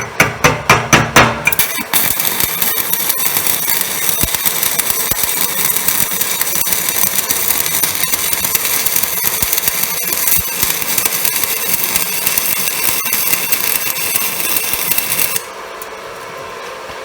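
Stick (MMA) arc welding with a UONI 13/55 basic-coated electrode laying a bead on steel plate. A quick run of sharp pops as the arc is struck gives way to a steady crackling hiss of the burning arc, which cuts off abruptly near the end as the arc is broken. The arc is burning evenly with a stable weld pool.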